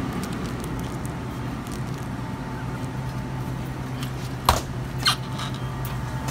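Steady low hum of a frozen-drink (slushie) dispenser. Two sharp clacks come about four and a half and five seconds in as the cup is worked at the dispenser, and a thin steady tone sets in after the second.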